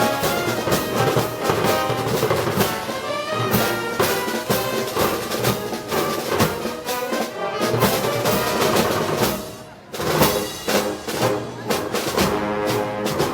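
Brass band playing festival march music, trumpets and trombones over drums. The band drops away briefly about nine and a half seconds in, then comes back with a loud accent.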